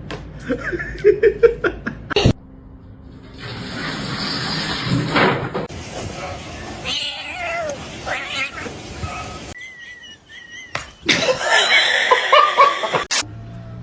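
Cats meowing and yowling in a series of short clips, each cut off abruptly.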